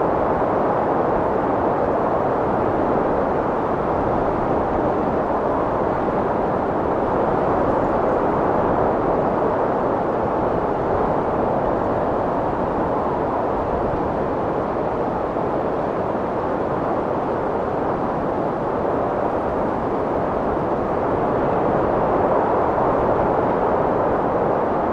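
Strong wind blowing as a steady, even rush, without sharp gusts.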